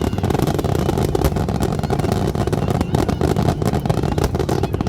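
Fireworks display going off in a dense, continuous barrage of rapid bangs and crackles over a low rumble.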